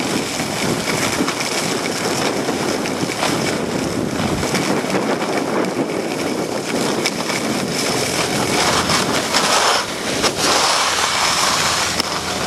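Steady rushing noise of wind over the microphone and snowblades scraping over packed snow during a downhill run.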